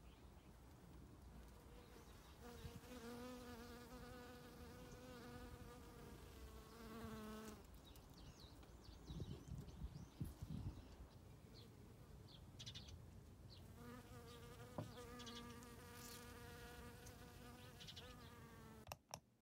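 Honeybees buzzing as they forage on blueberry flowers. There are two stretches of a few seconds of steady, quiet wing buzz, with a few soft low thumps in the gap between them.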